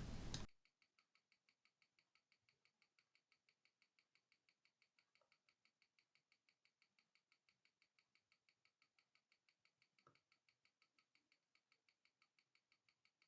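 Near silence: the sound drops out.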